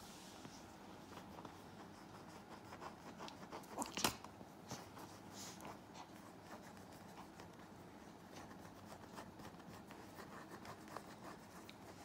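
Chihuahua gnawing and nibbling a plush toy: faint, irregular small clicks and scratchy fabric sounds, with one louder click about four seconds in.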